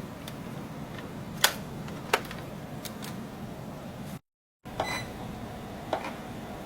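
Small electric drive motors and gearboxes of a 1/35-scale RC tank model running with a steady low hum, broken by several sharp clicks. The sound drops out for a moment a little after four seconds.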